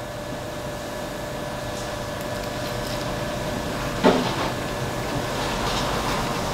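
A steady background hum with a faint held tone, like a ventilation or air-conditioning unit. About four seconds in there is a single short, muffled sound.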